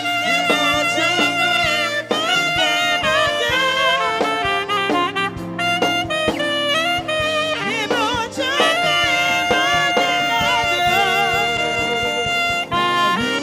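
Saxophone playing a melodic line over a live band. It slides between notes and puts vibrato on several long held tones in the second half.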